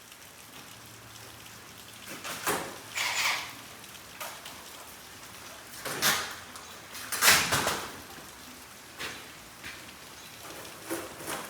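Scattered knocks, clatters and short scrapes of garage door installation work: metal door parts and tools being handled, with the loudest clatter about seven seconds in.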